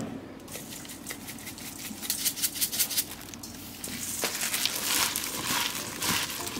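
Hand in a disposable plastic glove tossing cut chives and sliced onion with chili dressing in a stainless steel bowl: crinkling plastic and rustling leaves. It starts as sparse ticks and becomes a denser, louder rustle about four seconds in.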